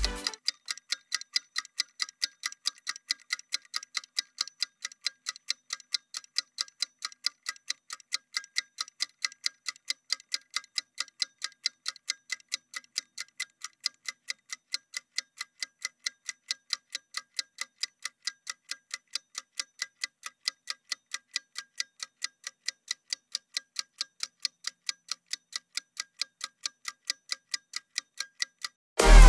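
Ticking clock sound effect counting down a rest break: sharp, evenly spaced clicks at about three a second. Electronic dance music cuts back in just before the end.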